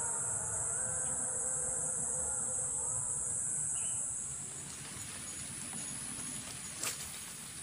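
Insects droning in a steady, high-pitched chorus. About four seconds in it grows quieter and shifts slightly higher in pitch, and light rain starts pattering. Near the end there is one brief, sharp sound.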